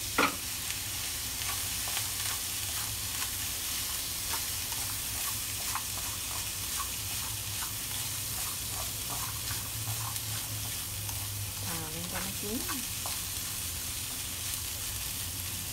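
Diced vegetables and minced meat sizzling in a frying pan while being stir-fried with wooden chopsticks, which tap and scrape against the pan in scattered light clicks, one sharper knock just after the start.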